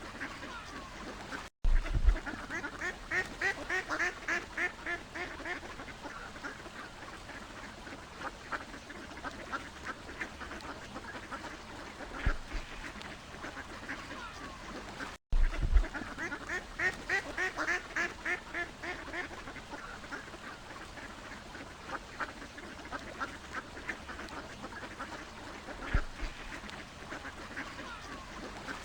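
Ducks quacking in rapid runs of short calls, with quieter stretches between. There is a brief break near the start and again about halfway through, where the same stretch of calls seems to start over.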